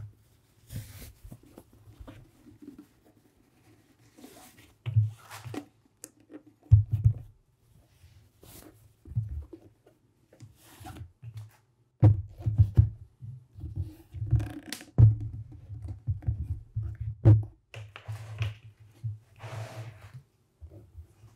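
Horsehide leather boots handled and set down on a tabletop: irregular low thumps and knocks as the soles meet the table, with brief rustles and scrapes of leather.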